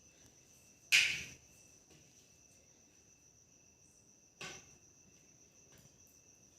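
Faint steady high singing of insects such as crickets, broken by two short clinks of kitchen utensils, a louder one about a second in and a softer one about four and a half seconds in.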